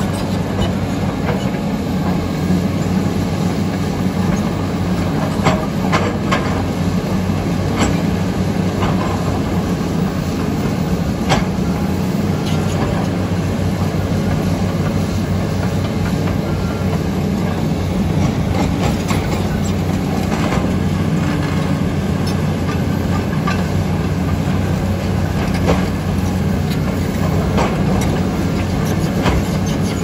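Heavy diesel engines of an MST crawler excavator and a Komatsu D85EX bulldozer running steadily under load. Frequent metallic clanks and rattles from the steel crawler tracks and the working gear.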